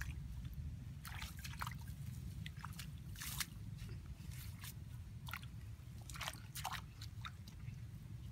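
Shallow muddy water sloshing and dripping, with wet mud squelching, as hands press a woven bamboo fish trap into the mud and grass at the water's edge. The splashes and drips come irregularly, a dozen or so short ones, over a steady low rumble.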